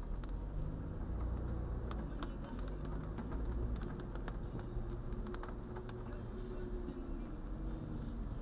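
Low, steady rumble of a car's engine and tyres on a wet road, heard from inside the cabin, with scattered light ticks of rain on the windshield, most of them a second or two in.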